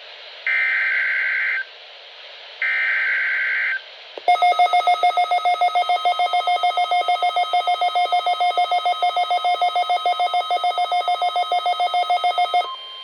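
EAS SAME header on NOAA Weather Radio: the last two of three bursts of digital data tones, each about a second long. Then a weather alert receiver's alarm beeps rapidly, several beeps a second, for about eight seconds and cuts off, announcing a required weekly test.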